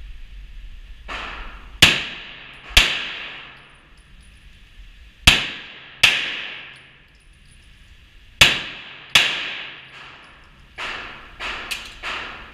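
Pistol shots in an indoor range. Three loud pairs fire under a second apart, each shot ringing out in the hall, then a quicker run of fainter shots comes near the end.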